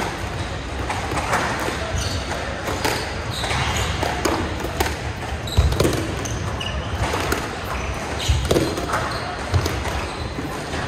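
Squash rally: the ball struck sharply by rackets and slapping off the court walls about once a second or so, with players' footsteps on the wooden floor.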